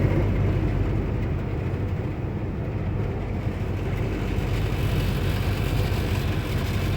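Steady low rumble of a car driving slowly on an icy road, engine and tyre noise heard from inside the car, easing slightly in the middle and building again near the end.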